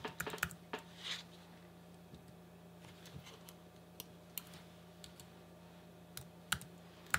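Keystrokes on a computer keyboard: a quick run of taps about the first second, then scattered single key clicks.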